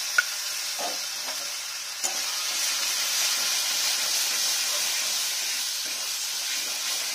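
Fried onions and a freshly added ground spice paste sizzling in hot oil in a kadai, a steady frying hiss, as a metal spatula stirs and scrapes them round. The masala is being fried down. Two sharp clicks from the utensils come just after the start and about two seconds in.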